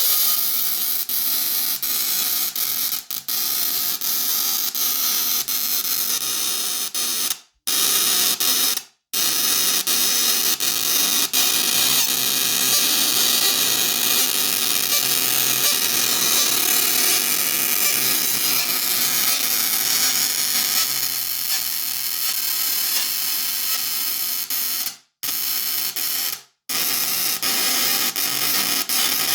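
A Tesla coil firing sparks: a loud, continuous buzzing crackle of discharge that cuts out completely for a moment four times.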